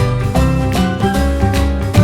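Upbeat background music with a steady beat and plucked-string notes.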